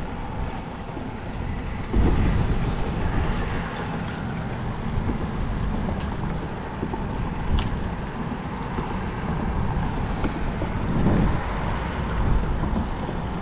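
Wind buffeting the microphone: a steady, rumbling rush of noise that swells about two seconds in and again near the end, with a couple of faint clicks in the middle.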